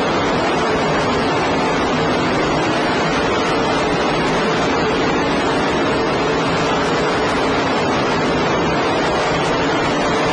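Race-car engines of a field racing around the oval, a steady dense din with faint engine tones underneath. The recording is poor and muddy, so the engines blur into a wash of noise.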